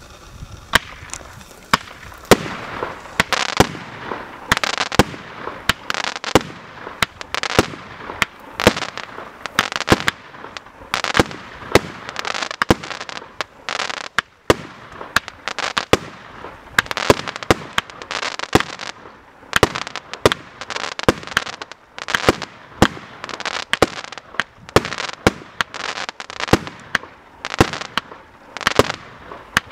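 Joker Fireworks JFC 30-36/08 consumer firework battery firing a rapid sequence of shots. The bangs of launches and aerial bursts come about two a second, with crackling between them.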